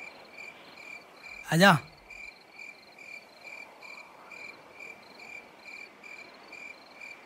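Crickets chirping in a steady rhythm, about three chirps a second.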